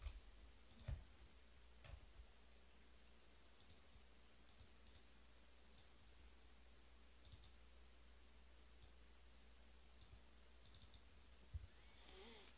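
Near silence: room tone with a low hum and a few faint, short clicks.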